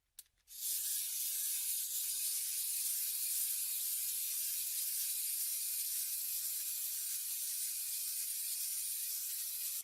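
Cartoon sound effect: a short tick, then a long, steady high hiss that cuts off suddenly.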